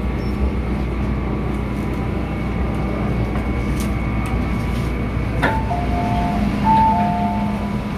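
Steady rumble and high whine inside an MTR M-Train carriage. About five and a half seconds in there is a sharp click, followed by an electronic two-tone chime that alternates a higher and a lower note twice.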